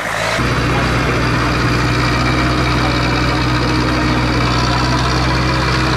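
Tractor's diesel engine running at a steady, even pitch as the tractor drives through a muddy puddle.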